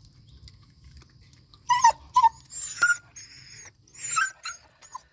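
A puppy giving a run of short, high-pitched cries, about five of them, starting a little under two seconds in.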